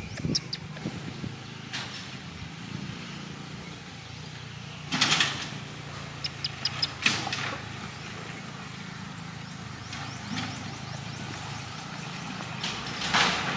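A steady low motor-like hum, with a few sudden crackles of dry leaves underfoot and two brief runs of short high chirps.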